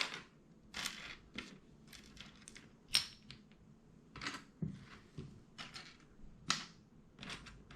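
Loose LEGO pieces rattling and clicking as they are searched through by hand, a string of irregular sharp clicks.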